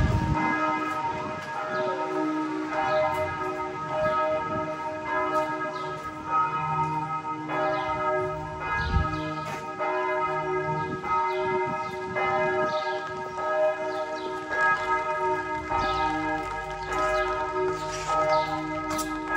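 Church bells pealing, several bells struck over and over so that their tones overlap in a continuous ringing.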